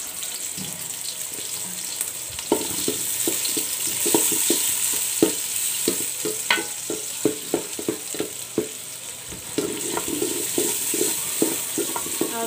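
Sliced onions sizzling in hot mustard oil in a metal pot. From about two and a half seconds in, a wooden spatula stirs them, knocking and scraping against the pot in quick, irregular strokes.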